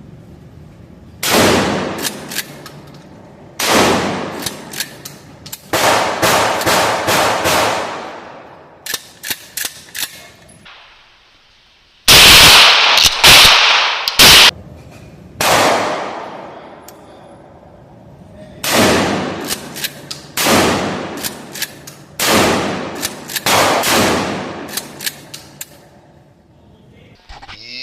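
A 12-gauge pump-action shotgun, the G Force GF2P, fired repeatedly, one loud blast every couple of seconds, with shorter clacks between shots. The loudest stretch, a close run of blasts, comes about halfway through.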